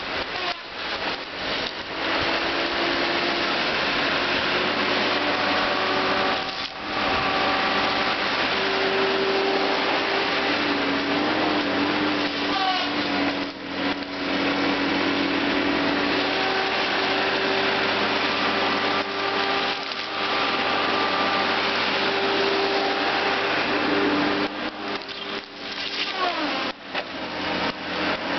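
Timbco tracked feller buncher working: its engine and hydraulics run loud and steady, with whining tones that shift in pitch and a few brief drops in level.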